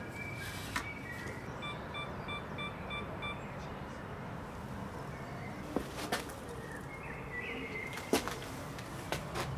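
Digital camera beeping six times in quick succession, about three short beeps a second, then a few sharp clicks of its shutter, over faint outdoor background noise.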